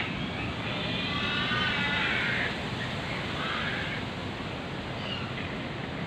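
Breeze blowing through garden trees and leaves as a steady rushing noise, with a bird calling loudly over it: one long call in the first half, then shorter calls later.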